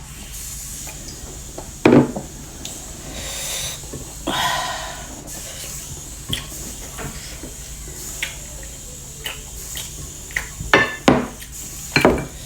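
Eating from a plate: sharp clinks of a utensil or dish against the plate, a loud one about two seconds in and several more near the end, with softer scraping and rustling of food between.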